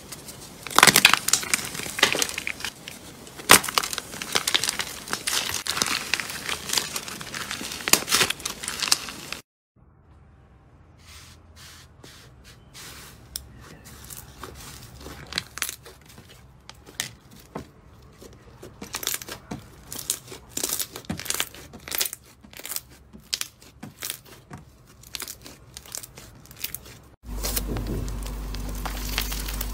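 Slime being squeezed and pressed by hand, making dense crackling and popping clicks. It is loud and crisp at first, then much quieter and sparser after a sudden cut. Near the end, bead-filled slime crunches over a steady low hum.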